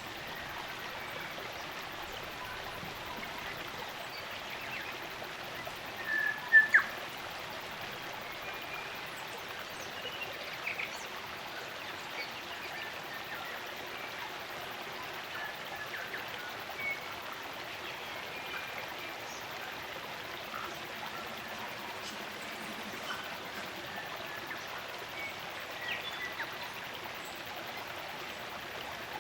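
Spring-fed stream running steadily, with scattered short bird chirps over it; a brief louder pair of calls comes about six seconds in.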